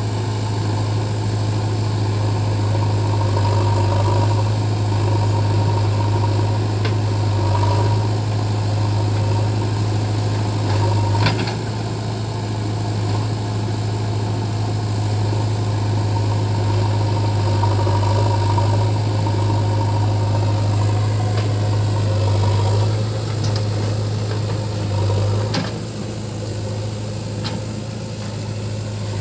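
JCB 3DX backhoe loader's diesel engine running steadily with a deep, even hum and mild swells in speed, with a sharp knock about eleven seconds in and a few more near the end.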